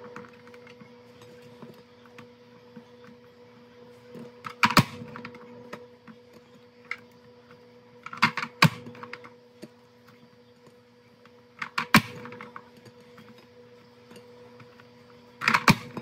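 Manual push-down vegetable chopper dicing strawberries: its plastic lid is pressed down through the blade grid with a sharp plastic clack every three to four seconds, over a steady low hum.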